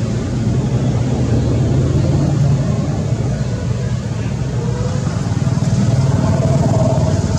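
A motor vehicle's engine running nearby: a steady low hum that swells a little in the second half.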